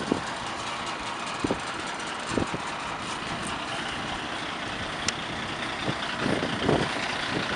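Diesel engine of a 1996 Mack Mid-Liner CS delivery truck idling steadily, with a few soft thumps and one sharp click about five seconds in.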